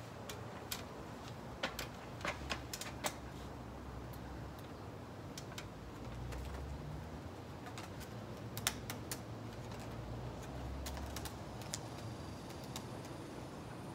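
Irregular light clicks and taps of a wooden obelisk frame being handled and adjusted, in clusters over a steady low rumble.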